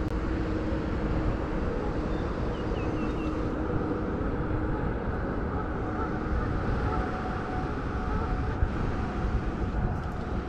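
Steady low rumbling outdoor background noise, with a few faint high chirps about three seconds in.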